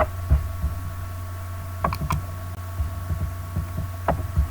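A few sharp computer-mouse clicks, a pair about two seconds in and one near the end, over a steady electrical hum with faint low bumps.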